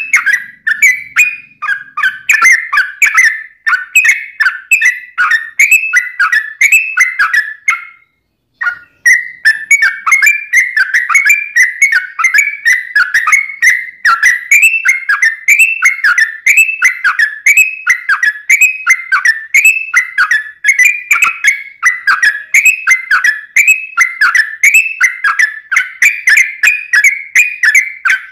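Sooty-headed bulbul (trucuk) singing a long, fast run of warbling whistled notes without pause, as used for song-training and lure recordings. There is a brief silent break about eight seconds in, then the song carries straight on.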